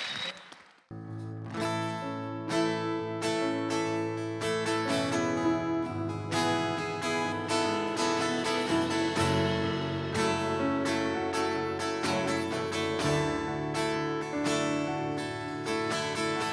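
Worship band playing an instrumental interlude, led by a strummed acoustic guitar over sustained low notes. The music comes in about a second in, after a brief hush.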